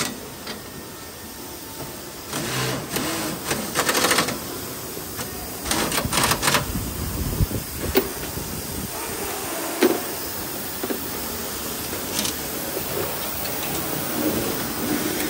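Factory workshop machinery running with a steady rattle, broken by several short bursts of hiss about half a second long.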